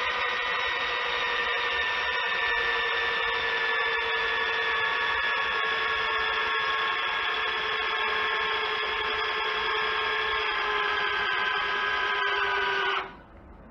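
Cordless drill spinning the input shaft of a Cub Cadet hydrostatic transmission, its motor and gear whine sliding slowly down in pitch as the drill battery runs down, then stopping suddenly near the end.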